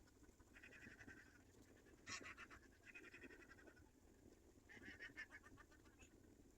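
Black-winged kite chick calling faintly: four short, raspy calls, each a quick run of pulses lasting under a second, with brief pauses between them.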